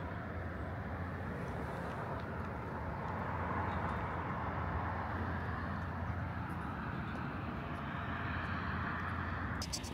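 Outdoor background dominated by a steady rushing vehicle noise that swells about three seconds in and stops abruptly near the end.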